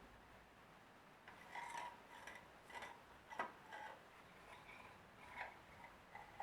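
A series of light, irregular clicks and taps, about ten of them, starting about a second in.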